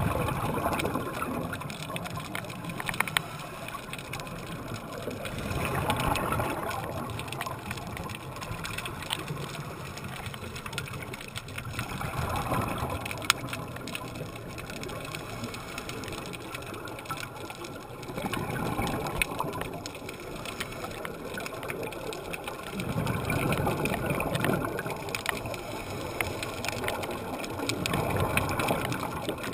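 A scuba diver breathing through a regulator, heard underwater. Bubbly exhalation bursts come about every five to six seconds, each lasting a second or two, with a quieter hiss between them.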